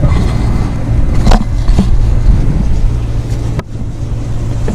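Steady low hum, with a few sharp clicks of a plastic electrical connector being worked loose; the sharpest click comes about three and a half seconds in, after which the sound drops a little.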